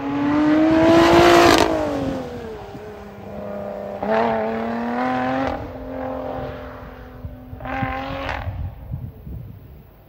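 Lotus Exige 410's supercharged V6 exhaust, loud as the car passes close by under power, its pitch dropping as it goes past. It then pulls away with two more bursts of rising revs and fades into the distance near the end.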